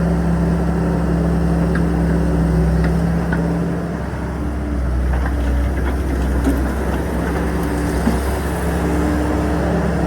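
Excavator's diesel engine running steadily at a low, even speed, with a slight dip in loudness about four seconds in.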